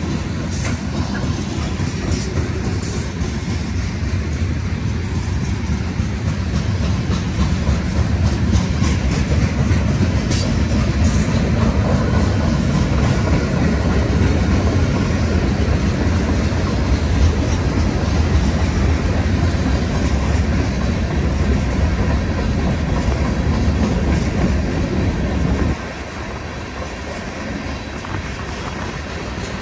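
Freight train rolling past: a steady low rumble of steel wheels on rail with rapid clickety-clack as the cars go by. Near the end the deep rumble drops away suddenly, leaving a thinner rattle.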